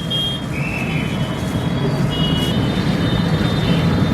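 Busy street traffic: a steady low rumble of engines, with short high-pitched beeps sounding a few times.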